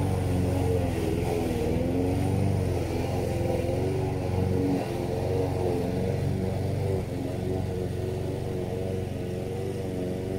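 Petrol rotary lawn mower engine running steadily while cutting grass, its pitch wavering slightly under load. It becomes a little quieter about seven seconds in as the mower moves away.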